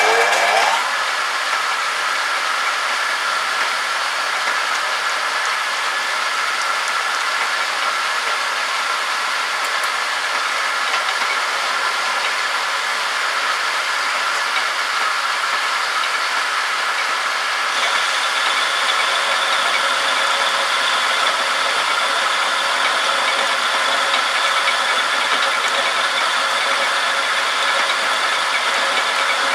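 Homemade metal lathe running: its motor and spindle drive come up to speed in the first second, then run with a steady whine and rattle. About two-thirds of the way through, a higher hiss joins in and the sound gets slightly louder.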